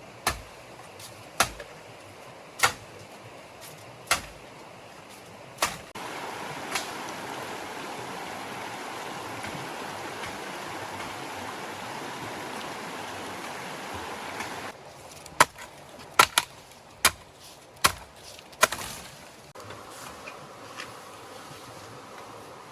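A series of sharp knocks about every second and a half, then a steady rushing noise lasting several seconds, then another quicker run of knocks.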